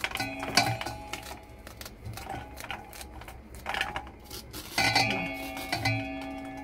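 A kitchen knife cutting kernels off a raw sweet corn cob over a stainless steel bowl: irregular scraping and clicking as the kernels come off and drop into the bowl. There are two louder knocks, about half a second in and near five seconds in, each followed by a metallic ringing that lingers.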